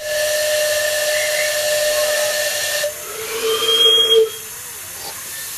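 Miniature steam locomotive whistles: one steady whistle for about three seconds, then a second, lower-pitched whistle that swells for about a second, over a steady hiss of steam.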